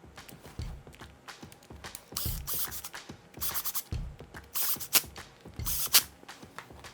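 Hand work on an angle grinder's housing and wiring during reassembly: a run of short scraping and rubbing sounds with light clicks, four louder scrapes in the second half.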